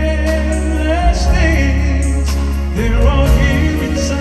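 Live band of grand piano, keyboards, bass guitar and drums playing a slow R&B ballad, with a male lead vocal over it.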